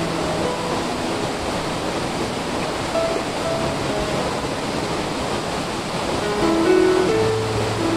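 Steady rush of a waterfall pouring into a rocky pool, with background music of slow, held notes playing over it.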